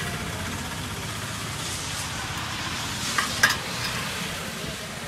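Steady hiss of falling rain, with a few sharp clinks of steel spoons against glass tumblers about three seconds in.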